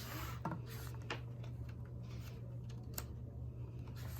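Paper pages of a picture book being handled and turned: soft rustling with a few light clicks, over a steady low hum.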